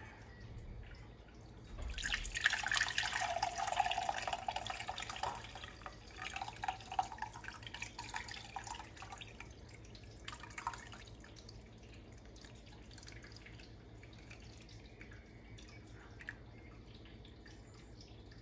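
Sauce and meat juices poured from a roasting container: a steady pour starting about two seconds in, thinning after a few seconds into trickles and drips that stop about halfway through.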